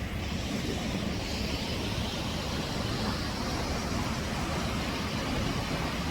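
Steady rushing water of a 24-metre waterfall falling into its pool.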